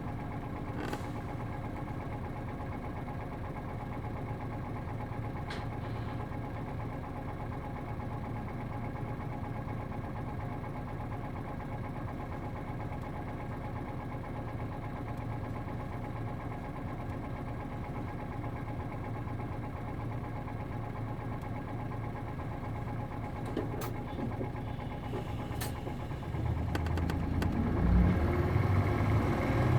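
Diesel bus's MD92TJ engine idling steadily at a stop, heard from inside the bus, with a few faint clicks. Near the end the engine gets louder and deeper as it takes load to pull away.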